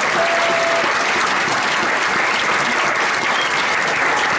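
Banquet audience applauding steadily, a dense even clapping from a roomful of people.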